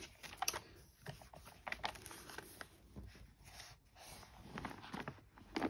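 Quiet handling noise from a large Bible: scattered soft rustles and small taps as the book and its pages are moved, with a slightly louder one near the end.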